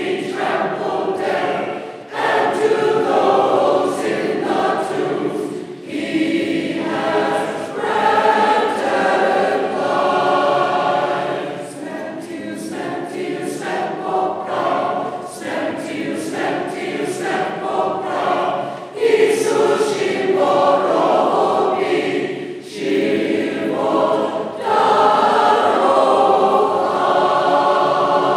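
Byzantine Catholic choir singing Paschal music, mixed voices in sung phrases broken by short breaths between lines.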